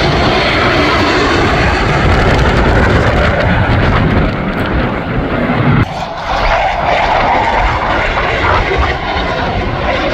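Blue Angels' twin-engine F/A-18 jets passing in formation: a loud, steady jet roar, which dips and changes abruptly about six seconds in.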